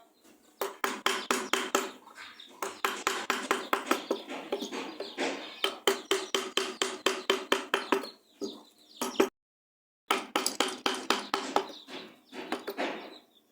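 Rapid, even series of sharp taps or knocks, about five or six a second, with a brief dead gap a little after nine seconds in.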